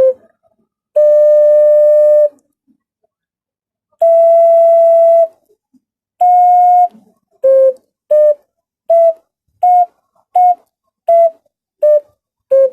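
Five-hole ocarina playing a clear whistle-like tone: three held notes stepping up in pitch, then a quick series of short, separate notes that climb and fall back down. These are the four notes fingered on the first two holes.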